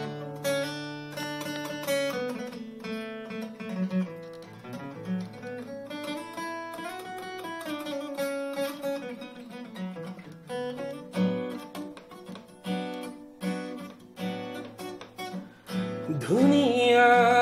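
Acoustic guitar played with a pick: an instrumental passage of plucked and strummed notes between sung lines. A man's singing voice comes back in near the end.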